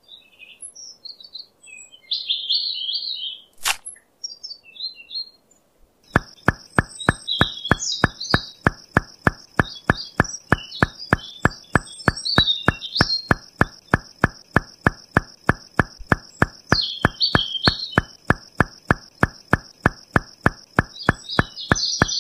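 Small birds chirping, with a single sharp click early on. About six seconds in, a fast, even ticking of roughly three beats a second starts, together with a steady high whine, while the chirping goes on.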